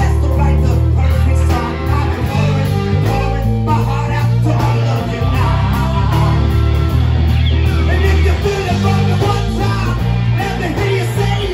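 Live rock band playing loud: electric guitars and bass guitar over a drum kit, with a trombone and some singing.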